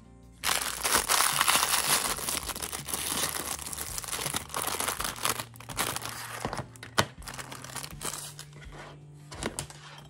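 Thin clear plastic bag crinkling and rustling loudly as it is torn open and handled, fading to lighter rustles with a sharp click about seven seconds in. Background music plays underneath.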